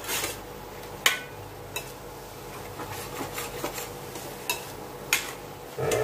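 A metal spatula scraping and clinking against a stainless steel pan while ground meat is stirred, with a few sharp knocks. Near the end there is a louder scrape as the spatula is set down in the pan.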